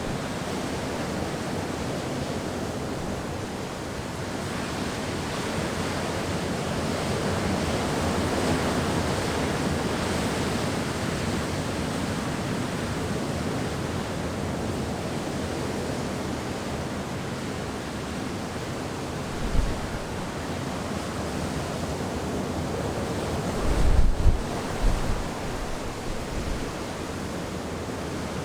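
Wind blowing as a steady rushing noise that swells and eases. A few low thumps of gusts buffeting the microphone come about two-thirds of the way through and again a few seconds later.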